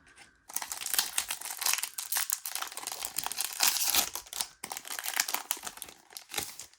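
Foil wrapper of a Pokémon Lost Origin booster pack crinkling and being torn open, a dense crackle that starts about half a second in and stops just before the end.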